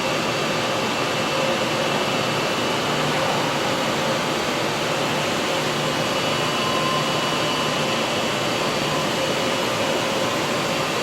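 ICE RS32 ride-on floor scrubber running: a steady rushing hiss with a few constant whining tones from its motors and vacuum suction.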